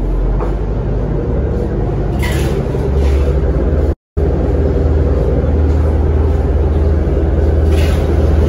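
Steady low rumble of wind buffeting the microphone and water rushing past a boat under way, broken by a brief gap of silence about four seconds in.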